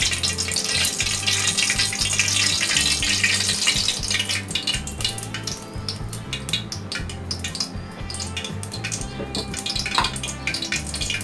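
Cooking oil trickling from a bottle into a large aluminium pot, a steady hiss at first that gives way after about four seconds to light crackling and ticking.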